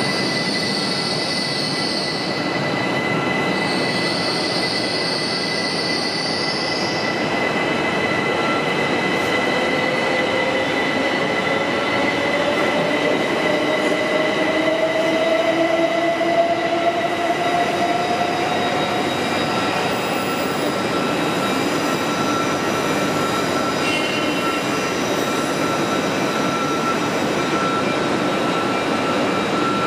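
Trains running at the platforms of a large station trainshed, among them Intercity Express Trains, making a steady mechanical din with high steady tones. Two high squeals come in the first seven seconds, and a whine rises slowly in pitch between about ten and twenty seconds in.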